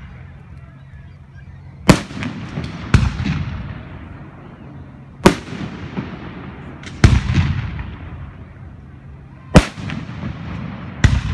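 Aerial firework shells bursting: about six sharp booms, one to two and a half seconds apart, each trailing off in a rumbling echo.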